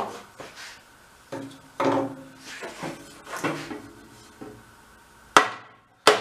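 A wooden board knocking and scraping against the tractor's sheet-metal body as it is levered and struck into place: a series of irregular clunks and rattles, with a sharp bang near the end.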